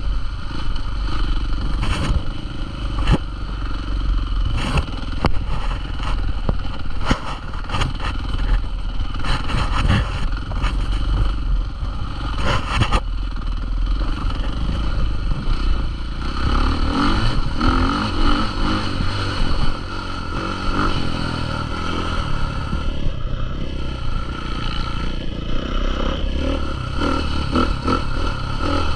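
Motocross dirt bike engines running and revving, with many sharp knocks and clatters through the first half. From about halfway in, one engine's note stands out clearly and its pitch drops and climbs again several times.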